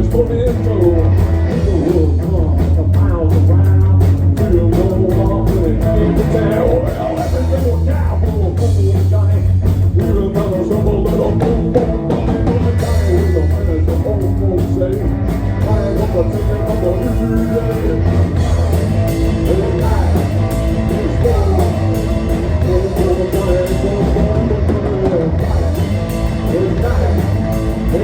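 Live rock band playing a song: electric guitar, bass guitar and drum kit, with a strong bass line and steady drumming.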